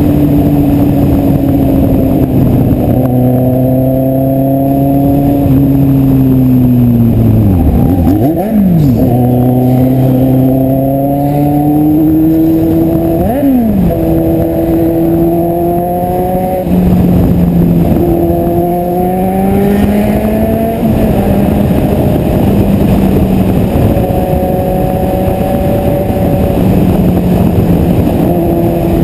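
Kawasaki Z750 inline-four motorcycle engine running under way, its pitch holding and slowly climbing, with two quick drops and snaps back up in revs about a third and about halfway through.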